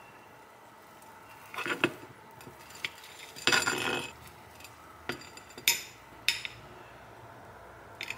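Metal spoon scraping and clinking against a ceramic plate as it cuts through a soft bowl cake, in about six short strokes; the longest and loudest scrape comes about three and a half seconds in.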